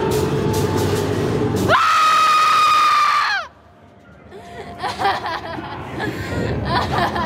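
A loud, shrill scream held on one high pitch for about a second and a half, bending down as it breaks off, cutting in over a dense rumbling background. After it the sound drops away abruptly, leaving a few faint short vocal sounds.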